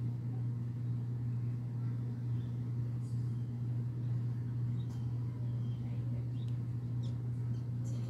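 A steady low mechanical hum at an even level, with a few faint, short, high bird chirps scattered through it.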